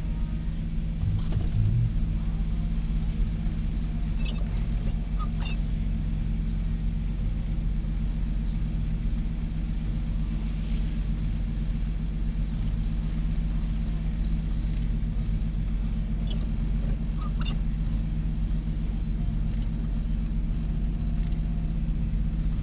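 Car engine and tyre noise heard from inside the cabin while driving slowly on a snow-covered road: a steady low rumble, with a few faint short high squeaks about four seconds in and again near seventeen seconds.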